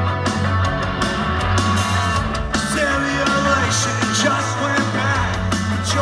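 Live rock band playing loud, with electric guitars, bass and drums and singing over it, heard from the crowd through a phone's microphone.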